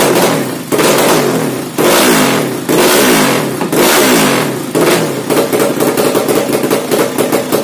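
Bored-out 200cc Yamaha Jupiter single-cylinder four-stroke engine, carburetted and breathing through a new open racing exhaust, revved in a string of throttle blips about once a second, the revs falling back after each. Past the middle it settles into a choppy, lumpy idle of about four beats a second.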